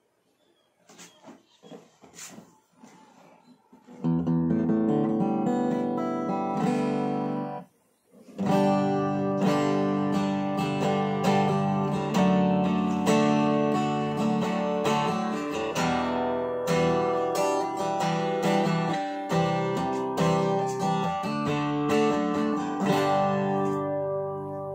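Jumbo acoustic guitar with a Philippine koa (acacia) top, back and sides, played with the fingers in picked and strummed chords. A few faint taps come first; the playing starts about four seconds in, breaks off briefly about eight seconds in, and fades near the end.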